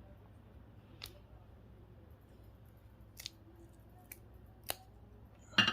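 A few short, sharp clicks from a small hand tool working on a GPS unit's circuit board, spaced a second or so apart, with a louder click and clatter near the end.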